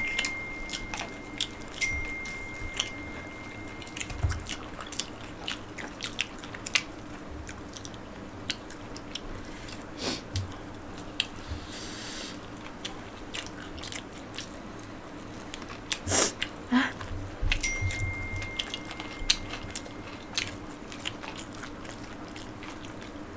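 Close-up eating sounds: chewing and biting into fried chicken and instant noodles, with many short, irregular smacks and clicks of the mouth, over a faint steady hum.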